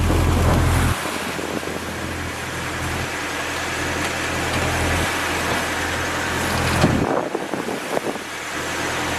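Steady low rumble under a broad rushing noise aboard a sailboat at sea. The rumble swells and drops every second or two.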